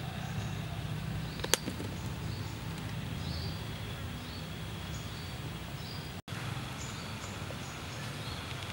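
Outdoor ambience of small birds chirping over and over in short, high calls, over a low steady rumble. One sharp click stands out about a second and a half in.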